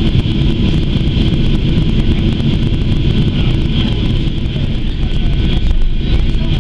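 Cabin noise inside a Boeing 737-800 taxiing after landing: a steady low rumble from the CFM56-7B engines at taxi power, with a steady high hiss over it.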